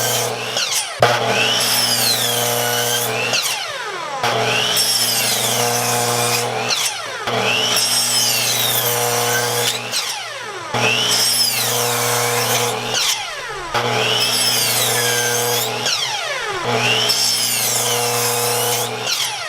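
Electric power saw cutting 2x4 lumber, the motor running with a steady whine that dips and recovers about every three seconds as cuts are made.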